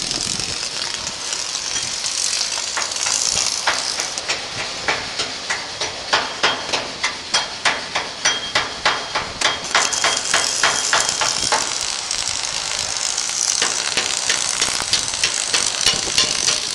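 Steady hiss of heavy rain, with a long run of sharp knocks at about two to three a second. The knocks pause briefly near the end of the run, then resume.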